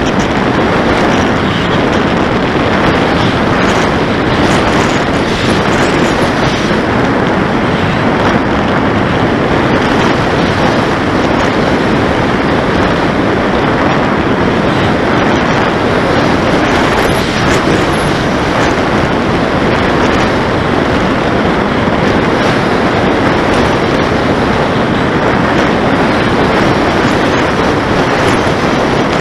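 Loud, steady rush of wind and propeller noise aboard a radio-controlled flying wing in flight, from its 850kv brushless electric motor turning a 12x8 propeller, buffeting the onboard camera's microphone.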